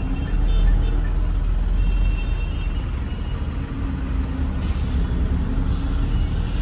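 Tata Signa truck's diesel engine running with a steady low rumble, heard inside the cab while the truck is driven and turned.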